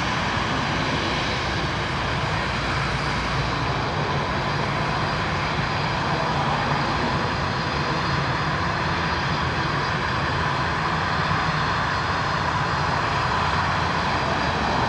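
Airliner jet engines running steadily at low taxi power: a constant whine over a low rumble, with no spool-up.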